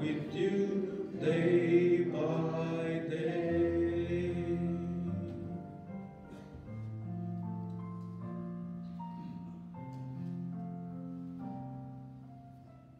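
Church music: voices singing over keyboard accompaniment, the singing stopping about five seconds in while the instrument goes on with steady held chords that fade out near the end.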